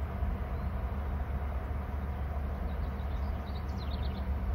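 Steady low rumble of outdoor background noise, with a faint, quick run of high bird chirps about three seconds in.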